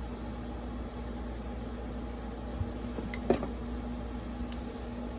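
Steady hum of room or fan noise, with a few light clicks from chainsaw parts and tools being handled about three seconds in and once more a little later.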